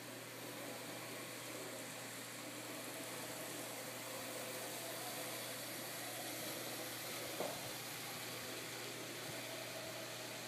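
N-scale model train running along the down track of a spline helix: a steady faint whir and hiss of the small motor and wheels on the rails, with one short click about seven seconds in.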